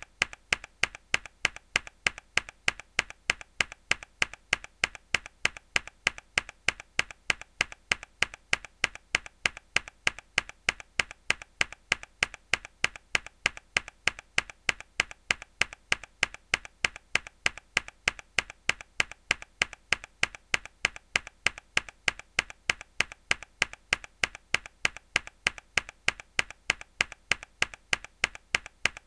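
A mechanical keyboard key struck hard over and over in an even, rapid rhythm, each press a sharp click with a fainter click after it.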